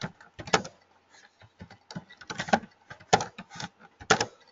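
Computer keyboard being typed on: irregular key clicks, a few in quick succession with short pauses between.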